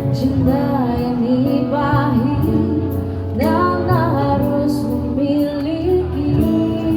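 Street musicians performing a pop song: a woman sings a smooth melodic line over steady held chords from the accompaniment.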